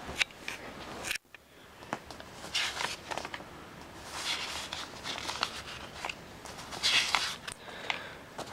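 Irregular rustling and handling noises with a few light knocks and clicks. No motor is running.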